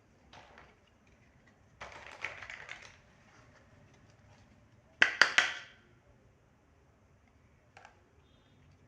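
Small hard plastic toy kitchen pieces being handled and clicked together: a stretch of rattling about two seconds in, a louder cluster of sharp clicks about five seconds in, and a single click near the end.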